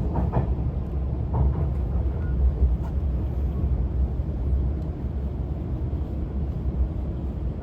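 Steady low rumble of a JR West 273 series electric train running, heard inside the passenger car.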